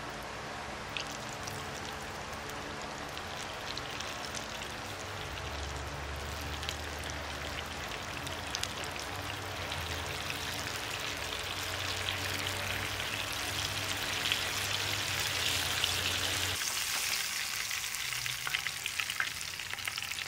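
Cornmeal-battered grouper cheeks deep-frying in hot oil: a steady sizzle with scattered pops and crackles, getting louder in the second half.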